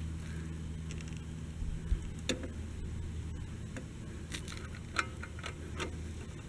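Scattered light clicks and taps of the fluid transfer pump's filler hose fitting being handled at the fill port of the C8 Corvette's dual-clutch transmission, over a steady low hum. The clicks begin about one and a half seconds in and come irregularly.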